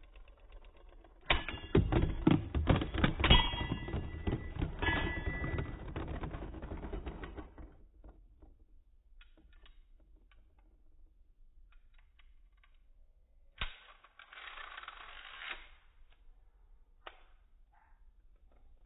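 Beyblade Burst spinning tops clattering against each other in a plastic stadium. About a second in they clash hard in a fast run of loud impacts as one top bursts apart, and the pieces rattle for several seconds before fading out. Later there is a single sharp click and a short hiss.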